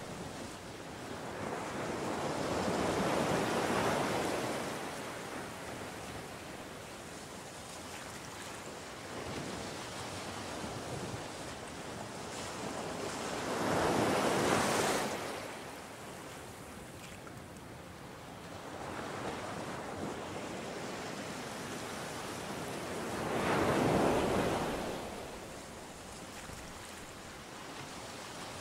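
Sea surf on a sandy beach: waves break and wash in three times, each swelling and fading over a few seconds, about ten seconds apart, over a steady hiss of surf.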